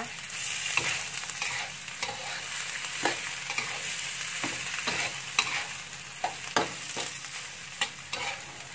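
Washed raw rice being stir-fried in oil and butter in a wok: a steady sizzle, broken by irregular scrapes and knocks of a metal spatula against the wok.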